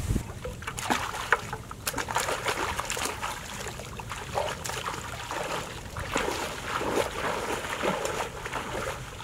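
A person wading through a shallow, muddy pond, water splashing and sloshing around the legs with each stride.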